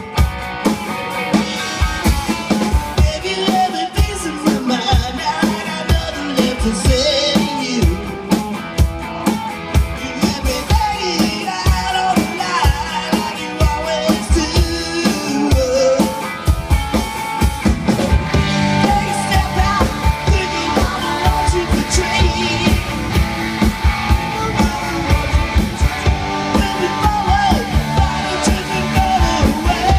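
Live rock band playing: drum kit with a steady beat under strummed acoustic guitar and electric guitars.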